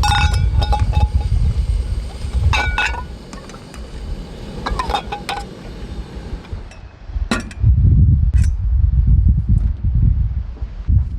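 Camp cooking utensils clinking together: a few short, ringing clinks. A heavy low rumble of wind buffets the microphone at the start and again in the last few seconds.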